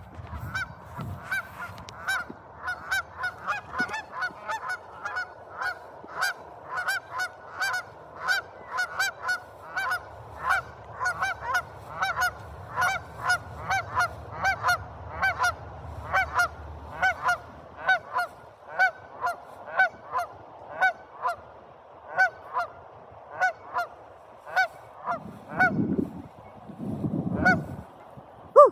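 Geese honking over and over, about two honks a second at first, thinning out toward the end. Two low rumbles come near the end.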